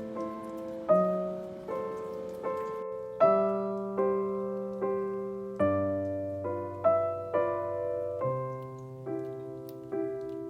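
Background music: a slow, gentle solo piano piece, single notes and chords struck about once a second and left to ring out.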